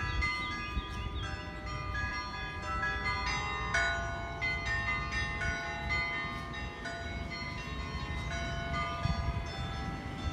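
Church bells ringing, struck in quick succession so that their tones hang on and overlap, over a steady low rumble.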